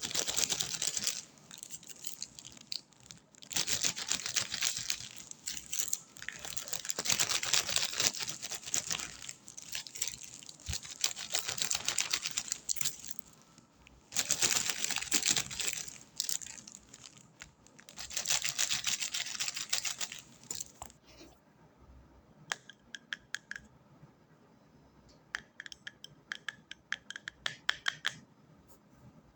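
Close-miked ASMR trigger sounds: bursts of scratching and crinkling lasting a second or three each. From about two-thirds through they give way to sparse light clicks and taps, some with a short ringing tone.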